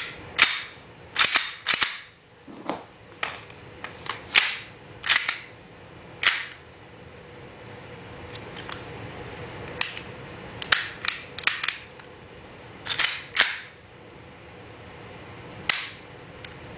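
Maruzen P99 airsoft pistol being handled: about twenty sharp clicks and clacks of its plastic and metal parts, some in quick pairs, at irregular intervals.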